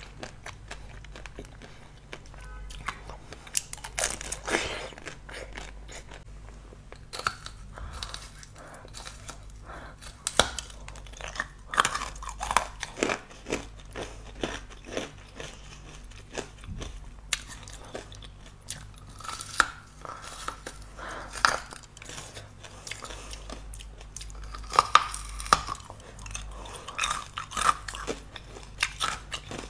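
Close-miked eating: a person biting into and chewing food, heard as a string of sharp, crisp crunches and wet chewing clicks. The loudest bites come in clusters a third of the way in and again near the end.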